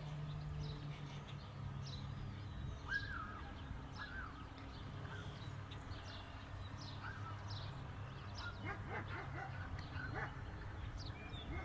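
Many short bird chirps and calls over a steady low machine hum. The calls grow busier and more crowded about eight or nine seconds in.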